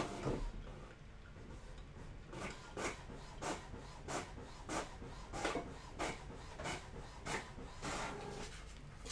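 A printer printing out a page: an even run of short rasping passes, about one every 0.6 seconds, starting around two seconds in.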